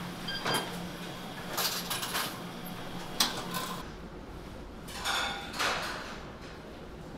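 Scattered clinks and clatter of dishes, trays and cutlery in a self-service cafeteria, over a steady low hum. About halfway the hum stops and a deeper rumble carries on beneath the clatter.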